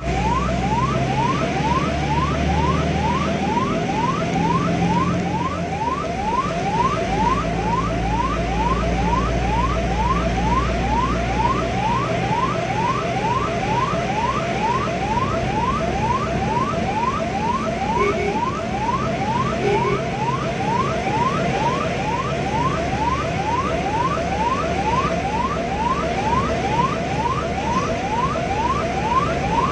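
Ambulance siren in a fast yelp, a rising wail that repeats about two to three times a second without a break, the sign of an emergency run. A steady low engine and road rumble from the moving vehicle runs underneath.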